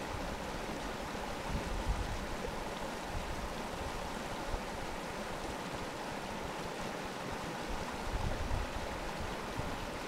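Steady rushing of a fell stream, with wind buffeting the microphone in low gusts at the start and again near the end.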